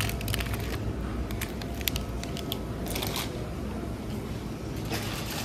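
Plastic mesh produce bags of lemons crinkling and rustling as they are handled, a run of crackly clicks over a low steady background hum.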